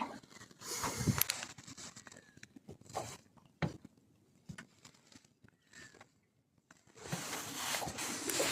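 Scattered clicks, knocks and rustling of a just-caught fish and its stick-minnow lure being handled. A denser rustling starts about seven seconds in.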